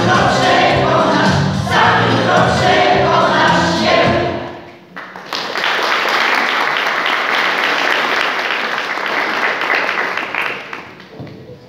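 Mixed choir singing, their song ending about four seconds in, followed by audience applause lasting about six seconds and fading near the end.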